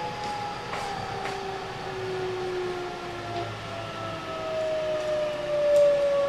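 Toshiba VVVF inverter and traction motors of a JR West 207 series 1000 subseries renewed train, heard from inside the car. The whine of several tones falls slowly in pitch as the train slows under electric braking, over a low running rumble with a few sharp clicks from the wheels.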